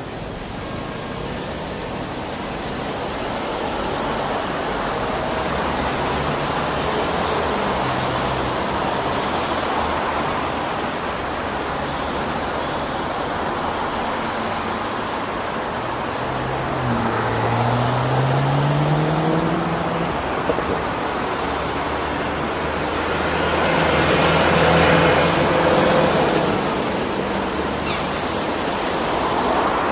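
City road traffic heard from a camera on a car's roof: a steady rush of road noise, with a vehicle's engine rising in pitch as it accelerates a little past halfway, and a louder vehicle passing close by near the end.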